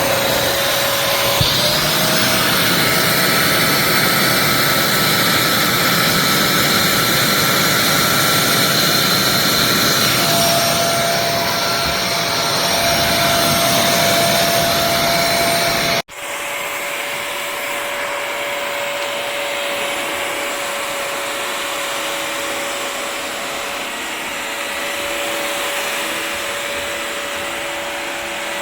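Bissell CrossWave HydroSteam wet-dry vacuum running steadily with a motor whine. About 16 seconds in, the sound cuts off abruptly and gives way to a quieter steady run of the machine.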